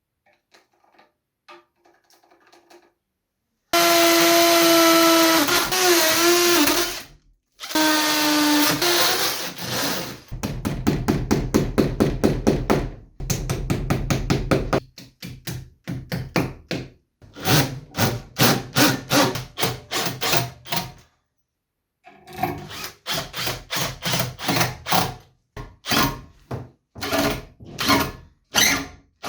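Electric drill whine in two short runs, the pitch sagging briefly as it loads. Then comes a series of rapid, even strokes, about three or four a second, in several separate bursts.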